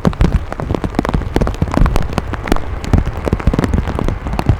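Heavy rain falling, with dense, irregular sharp taps of drops striking a surface close to the microphone.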